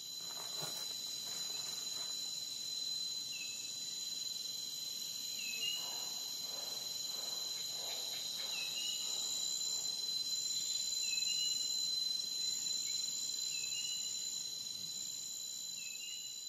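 Nature ambience: a steady high-pitched insect chorus with a short rising chirp every two to three seconds, and a few faint soft rustles in the first half.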